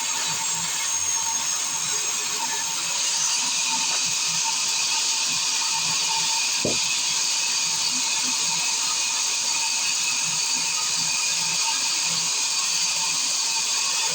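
Sawmill circular saw running steadily with a high whine, getting louder about three seconds in, with one short click near the middle.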